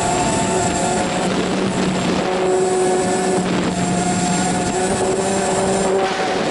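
A radio-controlled model plane's motor and propeller, heard from its onboard camera, running as a steady whine whose pitch shifts a little with throttle. Wind rushes over the microphone underneath it.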